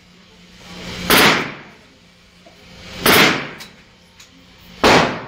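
Three gunshots on an indoor firing range, about two seconds apart, each followed by a short echo.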